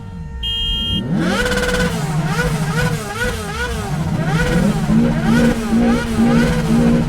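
Traffic sound effect: several car engines revving up and down over one another, their pitch rising and falling again and again. A short car-horn toot comes about half a second in. From around the middle, a low note pulses on and off a bit more than once a second.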